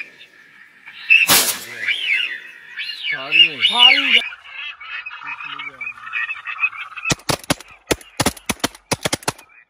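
A single shotgun shot about a second in, followed by ducks calling with rising and falling quacks. Near the end comes a quick run of sharp clicks, about four or five a second.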